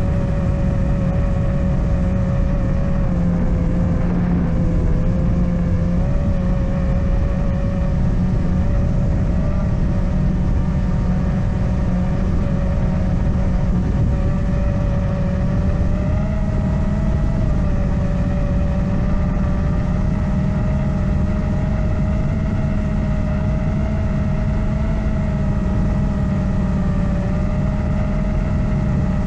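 FPV racing drone's brushless motors and propellers whining steadily in flight, the pitch wavering slightly as the throttle shifts, over a heavy low rumble.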